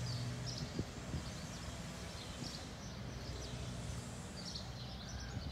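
Outdoor ambience with small birds chirping on and off, short high chirps repeating throughout. A low steady hum fades out within the first second.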